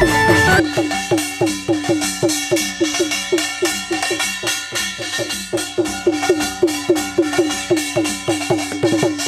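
Live folk drumming: a large hand-played barrel drum and a small round hand-held drum or gong struck with a stick, beating a fast steady rhythm of about four strokes a second, each stroke sharp with a short downward ring.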